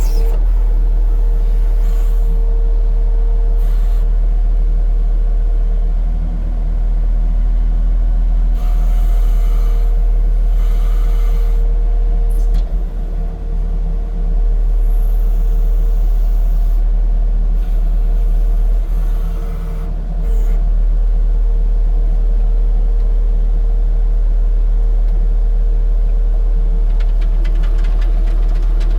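Case SV280B skid steer's four-cylinder turbocharged diesel engine running steadily, with a steady whine over it and a few short bursts of hiss.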